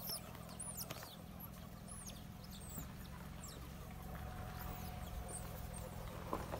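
Banded mongoose troop giving scattered short, high-pitched chirps while foraging, over a low steady hum.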